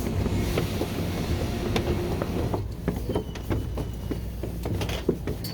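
New Jersey Transit commuter train running with a low rumble. A steady tone fades out about two seconds in, and then come irregular clanks and clicks from the rail cars.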